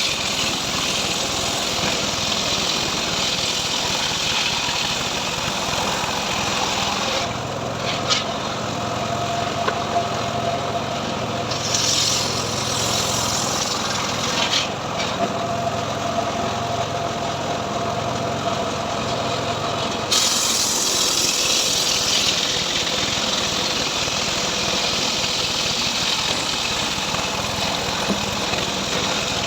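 Homemade engine-driven sawmill running steadily while its saw cuts teak into boards.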